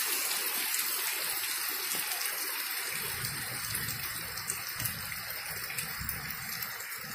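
Heavy rain falling steadily, a continuous hiss, with muddy runoff water flowing across the ground. Low rumbling joins from about three seconds in.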